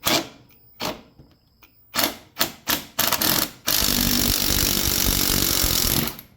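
Clicks and knocks of a tool being set on a bolt, then about two and a half seconds of a power impact tool hammering at the bolt in a fast rattle, stopping abruptly near the end.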